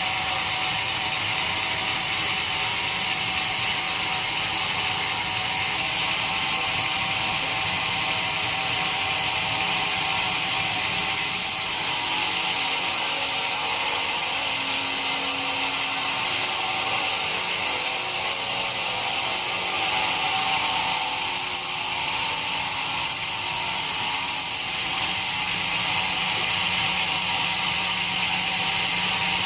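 Band sawmill running steadily through pine: an even, high-pitched machine noise with a low hum beneath that keeps on without a break.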